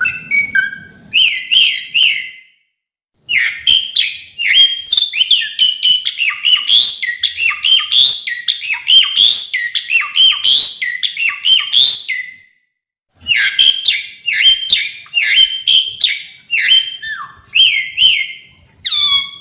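Asian pied starling (jalak suren) singing a long, varied song of rapid chirps and whistled phrases, full of mixed-in fill-in phrases, broken by two short pauses.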